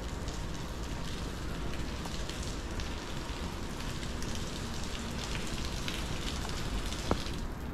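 Steady rain falling on pavement, with scattered drops ticking, and one sharp click about seven seconds in.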